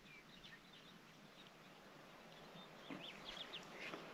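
Near silence: a faint outdoor background with a few short, high chirping animal calls, a cluster near the start and another about three seconds in.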